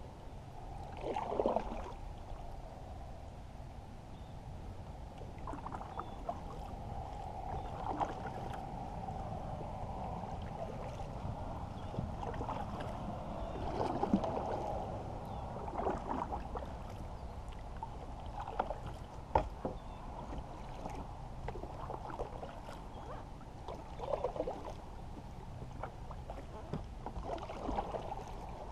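Kayak paddle strokes through shallow marsh water: uneven splashing and dripping off the blade with a steady trickling between strokes, and a few sharp knocks.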